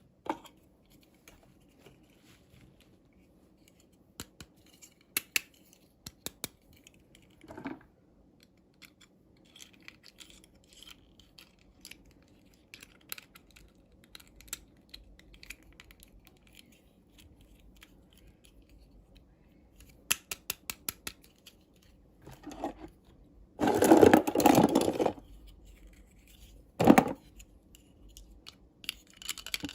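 Hands opening small plastic toy packaging: scattered light clicks and taps, with a loud stretch of rustling and tearing about three-quarters of the way through and one more short burst soon after.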